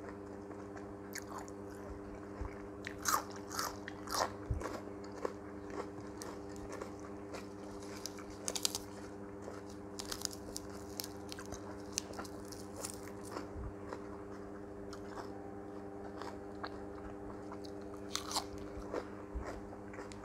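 Close-up eating sounds: crisp crunching bites and chewing of raw cucumber and lettuce, in irregular clusters, over a steady low hum.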